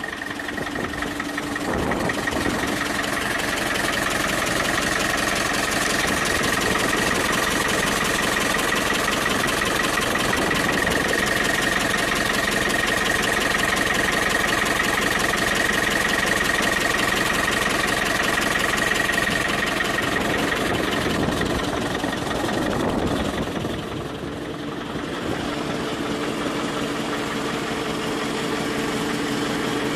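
Ursus C-360 tractor's three-cylinder diesel engine idling steadily, with a steady high whine over the engine note. It grows louder about two seconds in, as it is heard up close at the engine block, and drops back a little about three quarters of the way through.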